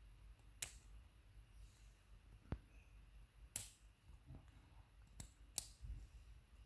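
Small metal tools clicking and tapping against a Zeiss Ikon lock cylinder while trying to get a circlip off. About five sharp clicks, spaced unevenly, the loudest about half a second in and past the middle.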